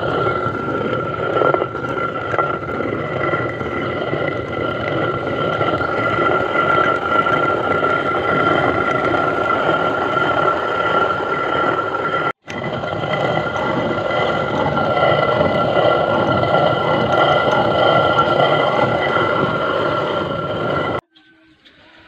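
Hand-turned stone quern grinding grain coarsely: a steady rumbling grind of stone on stone, with a thin high ringing tone over it. It breaks off for an instant about twelve seconds in and stops about a second before the end.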